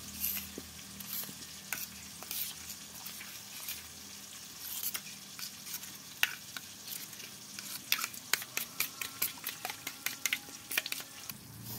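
Metal spoon stirring thick spiced yogurt in a steel bowl, clicking and scraping against the sides. The clicks come faster and closer together in the last few seconds.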